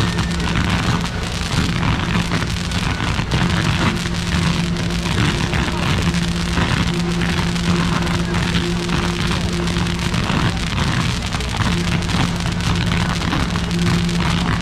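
Firecrackers and ground fireworks crackling densely and without a break, like heavy rain on a roof, with a steady low tone underneath that drops out now and then.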